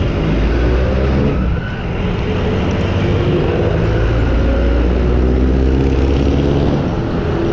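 Road traffic: motor vehicles running close by, with a deep steady rumble and an engine hum that is stronger in the second half.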